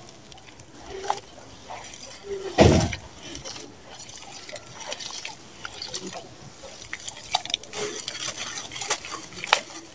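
Red sand-cement being crumbled and squeezed by hand in a bowl of water: wet crackling, squelching and splashing, with one louder thump about two and a half seconds in.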